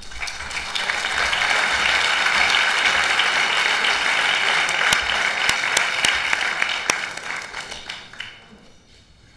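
A room full of people applauding, many individual claps blending into a dense clatter that swells quickly, holds steady, and dies away about eight seconds in.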